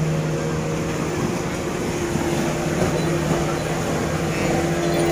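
Speedboat engine running at speed across the lake, a steady drone that holds the same pitch throughout.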